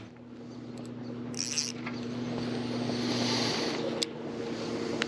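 A boat's motor humming steadily and low, stopping about three and a half seconds in. A brief hiss comes about one and a half seconds in, with a few light clicks, fitting a spin cast and the reel.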